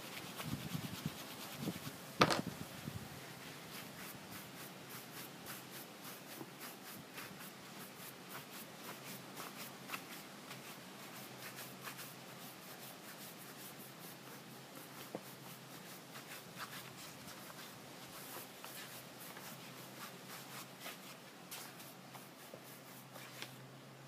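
Wooden tool rubbing back and forth over leather saddle billet straps, a faint repeated rubbing. There is a single sharp tap about two seconds in.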